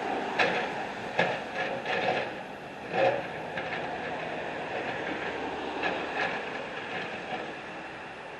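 Construction machinery clanking: a string of sharp metallic knocks over a steady mechanical rumble, most of them in the first three seconds and two more about six seconds in.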